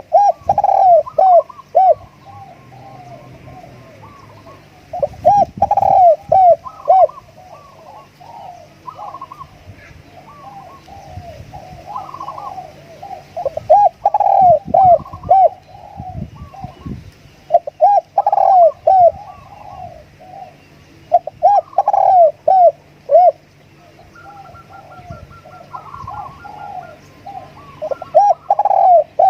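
Spotted dove cooing in loud groups of several coo notes, one group every four to five seconds. It is a decoy dove's call, used to lure wild spotted doves. Other small birds chirp faintly between the groups.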